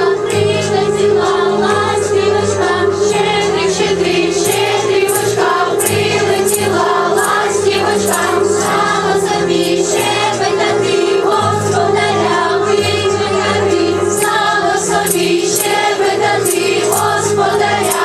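A choir singing over a musical accompaniment with a steady held tone and changing bass notes.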